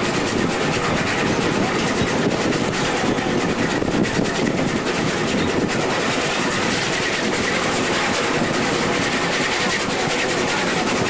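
Steady rumble and rattle of an open passenger wagon rolling along rails behind a small locomotive, with faint clicking of wheels over rail joints.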